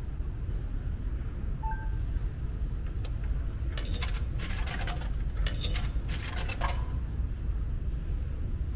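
Coins dropped one after another into the slot of a ticket vending machine, clinking and rattling down through the coin mechanism in four quick bursts between about four and seven seconds in, over a steady low rumble.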